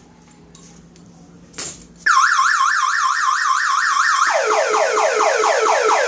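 Motorcycle alarm siren going off about two seconds in, loud: first a fast up-and-down warble, then, about four seconds in, a rapid run of falling sweeps, several a second. A short burst of noise comes just before it starts.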